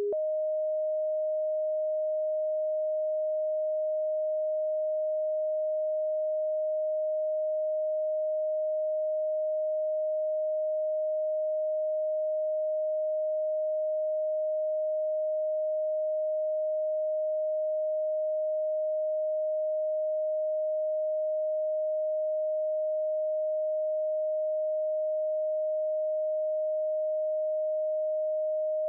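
Electronically generated pure sine tone, a Rife frequency, holding one steady mid pitch with no other sound.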